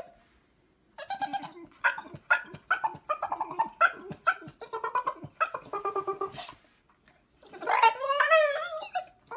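A pit bull-type dog vocalizing in a quick run of short, high, whining calls, about two or three a second. Near the end it gives one longer wavering howl.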